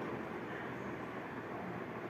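V-Guard Ecowind Prime BLDC ceiling fan running, a steady rush of air with no distinct mechanical rhythm.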